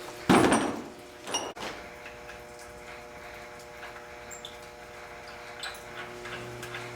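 Steady hum of boiler-room machinery with a noisy sound about half a second long near the start, then a few clicks about a second and a half in as the boiler door clamps are worked on.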